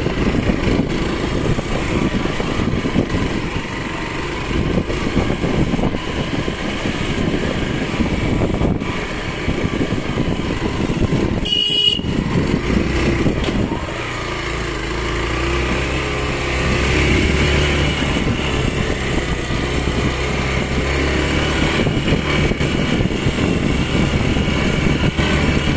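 Motorcycle engine running as the bike rides slowly along a rough dirt road, heard from an on-bike camera. About halfway through there is a short high beep, and after it the engine settles into a steadier low hum.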